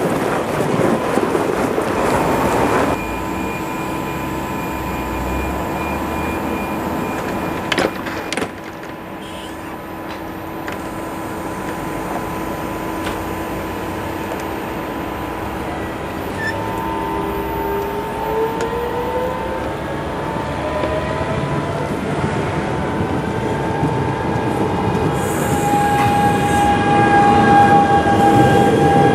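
NSB Class 73b electric multiple unit pulling out: steady humming at standstill, two sharp knocks about eight seconds in, then from about halfway a whine from the traction motors that rises in pitch and grows louder as the train accelerates away.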